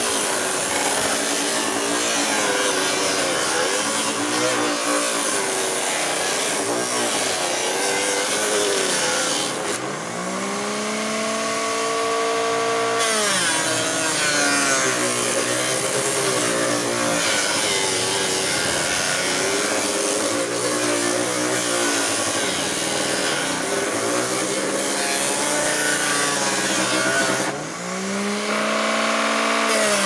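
Homemade disc sander built from a blender motor, running while a mirror frame's edge is pressed against its sanding disc. A gritty sanding rasp sits over the motor's whine, whose pitch sags under the load. About ten seconds in, and again near the end, the rasp drops away and the whine climbs back up as the frame is eased off the disc.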